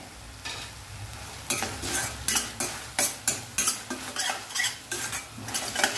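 Steel spoon scraping and clinking against a stainless steel kadai as an onion-tomato masala is stirred, over a low frying sizzle. The stirring strokes start about a second and a half in and come about three a second.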